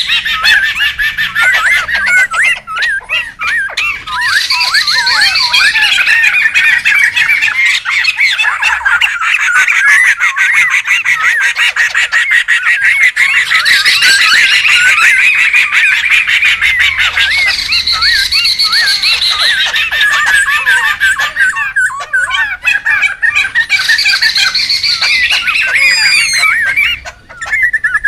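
A noisy group of laughingthrushes (poksay) calling together: continuous overlapping chattering, squawking and warbling phrases, with a short lull near the end.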